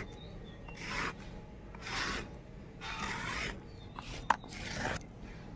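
Ginger and dried-chilli paste being scraped off a flat stone grinding slab (shil), four short rasping strokes about a second apart, with one sharp click near the end.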